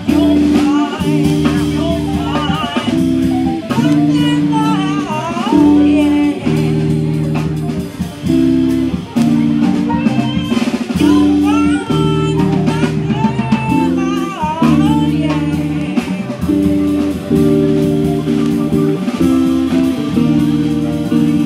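Live band music: an electric guitar and a piano play rhythmic chords, with a woman singing over them.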